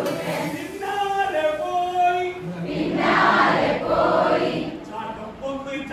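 A group of young men and women singing a chant together in unison, holding long notes. About halfway through, many voices rise into a louder, ragged burst before the sung notes return near the end.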